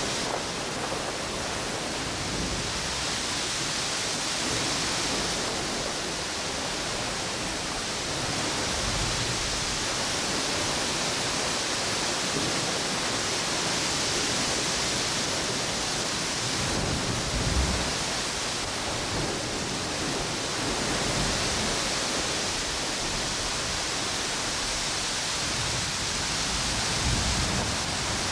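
Ocean waves and strong wind at a tropical beach: a steady rushing noise of surf and wind, with gusts buffeting the microphone a few times in low bumps.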